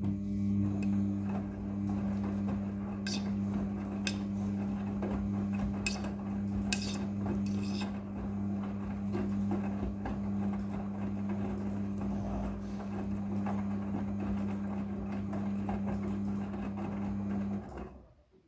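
Midea front-loading washing machine's drum motor running during the wash cycle: a steady low hum with scattered clinks and knocks as the load tumbles. It starts at once and cuts off shortly before the end.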